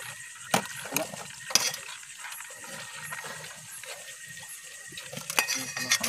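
Water splashing and dripping in a plastic bucket as crabs are lifted out of it by hand. A few sharp clicks and knocks come over it, with a cluster of them near the end.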